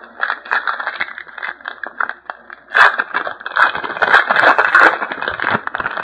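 A trading card pack wrapper crinkling and tearing open, with cards rustling as they are handled. It is loudest about halfway through.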